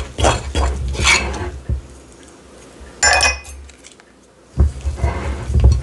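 A spoon and then a spatula stirring biscuit-dumpling dough in a mixing bowl: scraping and clinking against the bowl, one short ringing clink about three seconds in, and heavier knocks near the end.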